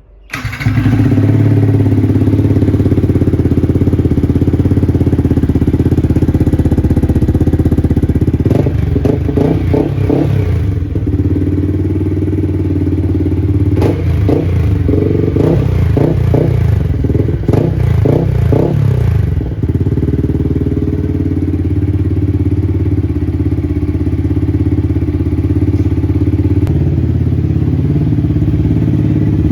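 A 2024 Yamaha R15's single-cylinder engine, fitted with a new aftermarket Jeskap exhaust, starts up and idles. About nine seconds in and again about fourteen seconds in, it gives two runs of quick throttle blips, then settles back to a steady idle.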